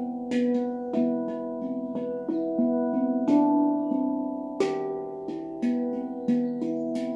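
Handpan played with the fingertips: a flowing run of struck steel notes, each ringing on until the next, with some notes hit harder and brighter than the rest.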